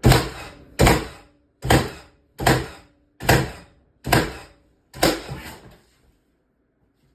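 Ridgid 30-degree framing nailer firing seven nails into wood in quick succession, a sharp shot about every 0.8 seconds, then stopping.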